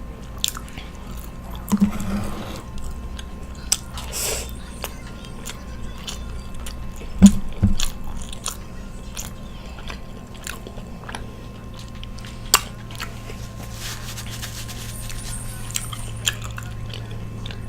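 Close-miked chewing of takeout Chinese food: crunchy bites and many small mouth clicks, with two brief, louder low sounds about seven seconds in.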